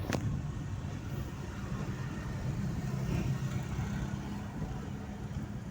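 One sharp firework crack just after the start, over a steady low hum.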